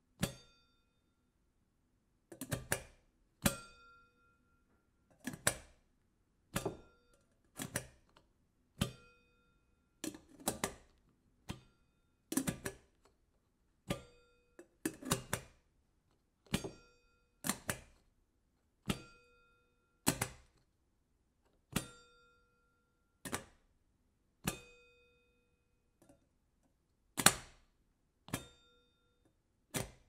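The lid of an empty metal electric kettle being snapped open and shut over and over: sharp metal clicks about once a second, some in quick pairs, several with a short metallic ring after them.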